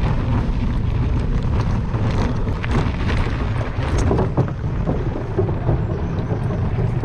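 Steady low rumble of wind buffeting the camera microphone, with scattered knocks.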